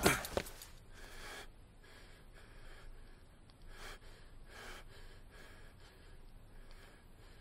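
A person gasps sharply, then breathes heavily, with several soft audible breaths spaced unevenly about a second apart.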